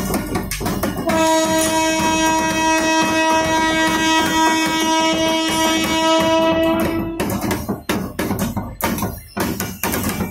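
Background music with a busy rhythmic beat. About a second in, a single steady held tone with overtones sounds for about six seconds and then cuts off abruptly.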